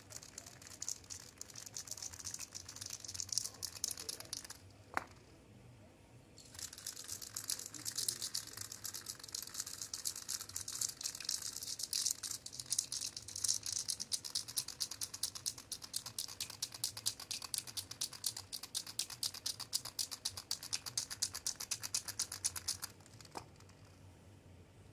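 Aerosol spray paint can being shaken, the mixing ball inside rattling quickly. The rattling pauses for about two seconds around five seconds in, with a single click, then goes on and stops near the end.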